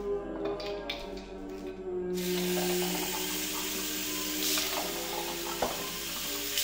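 A few light glass clinks as drinking glasses are picked up, then a kitchen tap runs into a glass, filling it with water, from about two seconds in.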